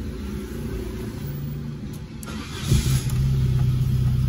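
Peugeot 306 engine, heard from inside the cabin, cranked by the starter and catching after about two and a half seconds, then settling into a steady idle. It starts easily and is cold.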